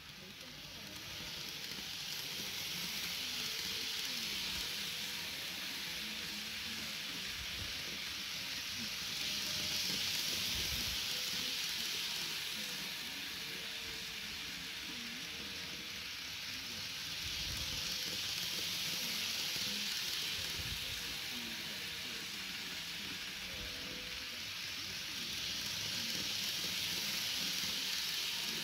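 N-gauge model of a 485 series limited-express train running laps of an oval of track. Its motor and wheels on the rails make a steady hissing whir that swells about every nine seconds as the train passes close by.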